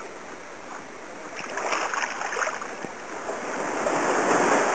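Sea water splashing and washing around close by in the shallows, with a splashy stretch in the middle and a louder wash swelling near the end.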